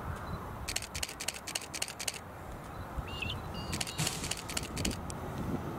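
Low steady rumble, with two runs of rapid sharp clicks and a few short high chirps.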